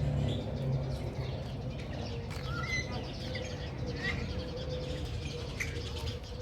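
Birds chirping in short, scattered calls over a steady low hum and background rumble.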